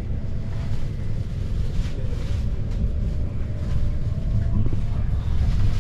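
Electric commuter train running, heard from inside the passenger carriage: a steady low rumble from the wheels and running gear, with a faint thin tone coming and going above it.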